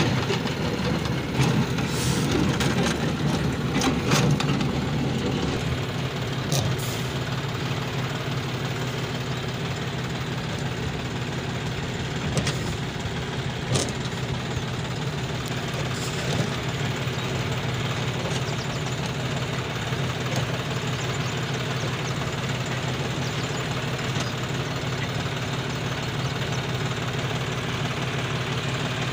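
John Deere 5105 tractor's three-cylinder diesel engine running steadily as it works a seed drill through the soybean rows. Sharp clicks and rattles come thickly in the first few seconds, then now and then.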